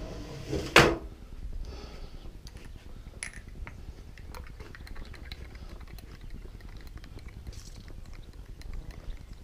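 A single sharp knock about a second in, then light footsteps and faint scattered clicks on a tiled terrace over a low rumble.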